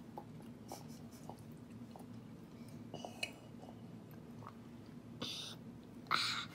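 A toddler drinking soup straight from a bowl, with small wet mouth and swallowing clicks. Two short, louder breathy gasps come near the end, the second as the bowl comes away from her mouth.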